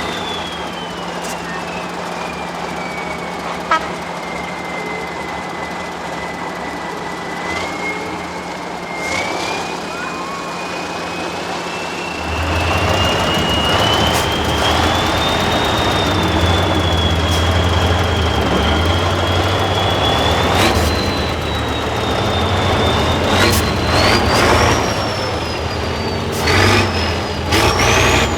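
Tatra 6x6 truck's diesel engine working off-road, with a high whine that falls and then rises again as it goes. About halfway through, the engine grows louder and heavier as it takes load, and a few sharp knocks come near the end.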